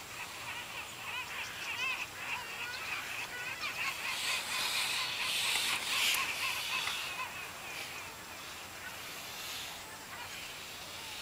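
Inline skate wheels (Synergy 89A 72mm) rolling on a hard tennis-court surface: a hiss that swells about four seconds in and fades after about seven as the skater passes close. Birds call throughout with quick, wavering calls.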